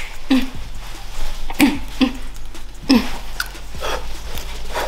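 A person making short, repeated non-word vocal sounds, about one a second, each sliding down in pitch.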